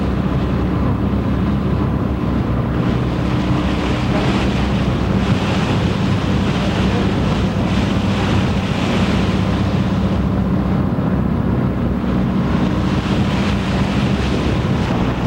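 Boat engine running with a steady low drone under heavy wind buffeting the microphone and the rush of water.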